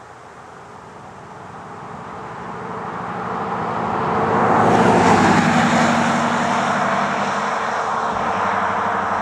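Engine noise of something passing by: it swells steadily to a peak about five seconds in, then slowly fades.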